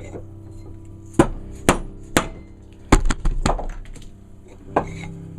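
Shot-filled dead blow hammer striking a hardwood block to drive an axe head off its handle: sharp knocks, three about half a second apart, then a quick run of four around three seconds in, and one more near the end.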